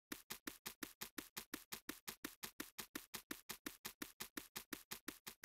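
Pen-on-paper scratching sound effect: short, even scratch strokes repeating about six times a second as a line is drawn across a paper map, ending just at the close.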